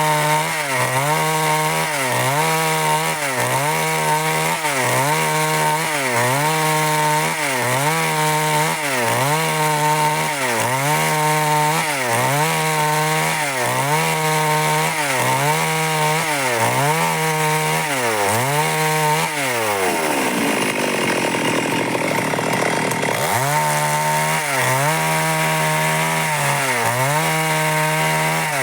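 Stihl MS 382 two-stroke chainsaw cutting wood under load, its engine note dipping briefly about once every 1.3 seconds. A little past two-thirds of the way through, the engine bogs down for about three seconds, then picks back up.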